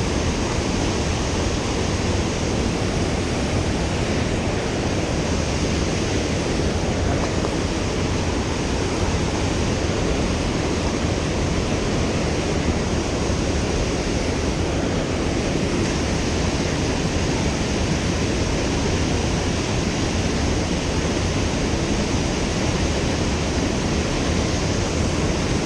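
Steady rush of water from a fast-flowing mountain river.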